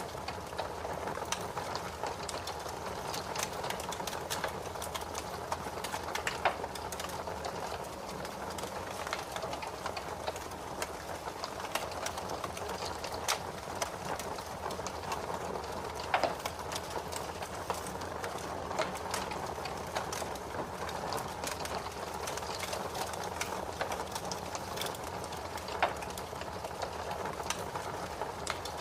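Fire crackling in a fireplace: a dense, irregular patter of small snaps over a soft hiss, with a few louder pops spaced through it, the sharpest about halfway.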